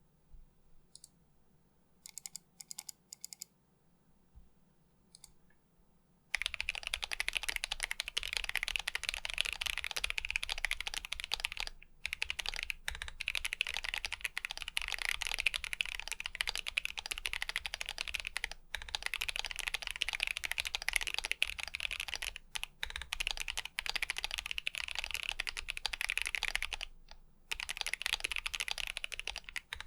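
Typing on a stacked acrylic Alice-layout mechanical keyboard fitted with Akko ASA-profile PBT doubleshot keycaps. A few scattered keystrokes come first. From about six seconds in there is fast, continuous typing, broken by a few brief pauses.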